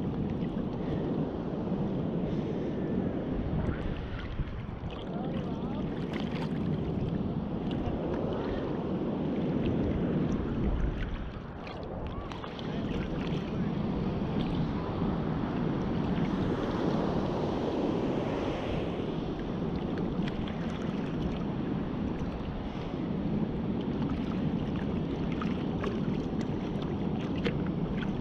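Ocean surf breaking and washing, swelling and easing, with wind buffeting the microphone.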